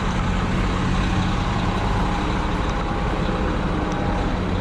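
Heavy diesel engine idling steadily with a low, even hum.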